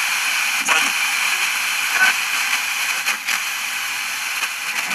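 Static hiss from a handheld multiband radio receiver as its tuning wheel is turned by hand across the FM band, with a few brief crackles.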